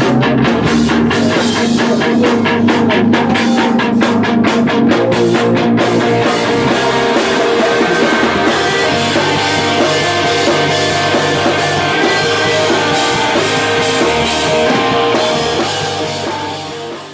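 Rock music with guitar and drums, with an even, sharply struck beat for about the first six seconds, then fading out near the end.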